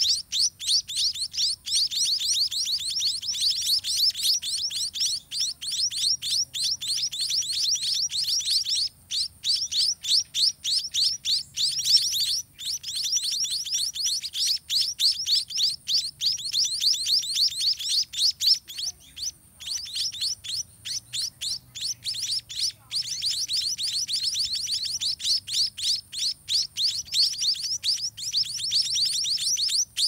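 White-rumped munia nestlings begging for food from a parent at the nest: a rapid, almost unbroken train of short, high chirps, with a few brief breaks.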